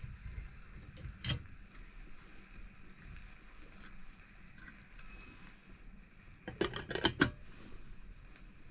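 Small hard objects clinking and clattering as they are handled: one sharp click about a second in, then a quick run of clinks about six and a half seconds in, over a faint steady background.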